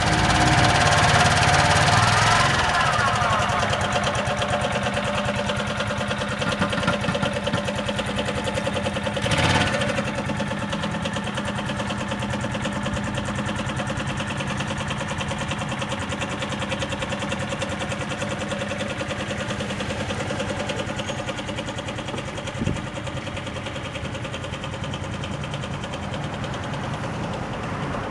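Suzuki Gemma 125 scooter engine running just after starting. It is louder at first and its revs drop within the first few seconds, then it idles steadily. There is a brief swell of revs about ten seconds in and a single sharp click late on.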